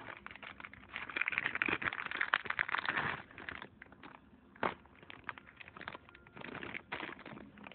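Crinkling and rustling of a mailer envelope being handled and rummaged through. The crinkling is densest for a couple of seconds early on, then comes in scattered crackles with one sharp crackle near the middle.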